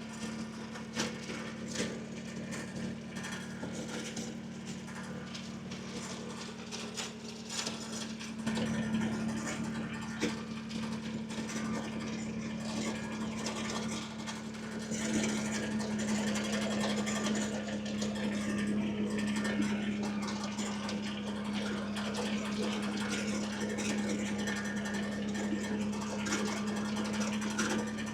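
Kubota BX23S compact tractor's three-cylinder diesel engine running with a steady hum. It gets louder about eight seconds in and again about fifteen seconds in, as if the revs are brought up.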